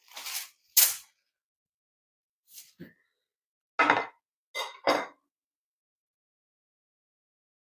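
Short clattering knocks of bamboo satay skewers and kitchen items being put down and moved on a stone counter and wooden cutting board, in a few separate bursts: two sharp ones in the first second, a faint pair a couple of seconds later, and three more around the middle.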